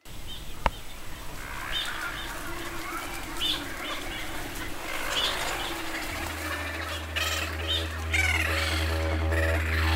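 Birds calling over a rushing background, with repeated short chirps and cackling calls. About six seconds in a low steady drone comes in, the start of a music track.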